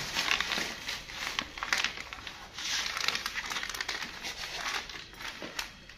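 Plastic grocery bags and packets rustling and crinkling as they are handled, with irregular crackles.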